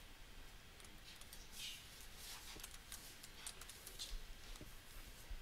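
Faint, irregular keystrokes on a computer keyboard, a scattering of soft clicks.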